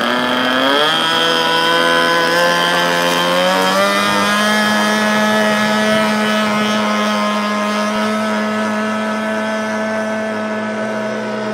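Radio-controlled model floatplane's small engine throttling up for a takeoff run across the water: the pitch rises about a second in, climbs again about four seconds in, then holds at a steady high whine at full power.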